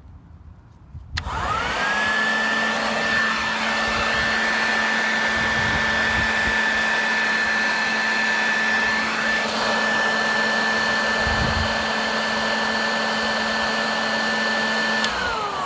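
Electric blower switched on about a second in, its motor whine rising quickly to a steady high pitch over a loud rush of air, producing a sustained wind of about 125 mph. Near the end it is switched off and the whine falls away as the motor spins down.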